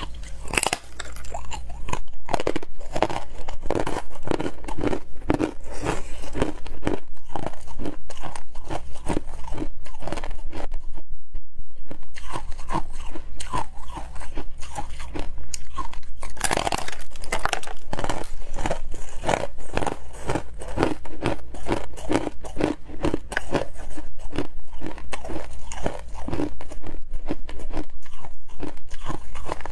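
Close-up crunching and chewing of frosty slabs of ice: a steady run of crisp bites and crunches, with a brief pause about eleven seconds in and a sharp, loud bite a few seconds later.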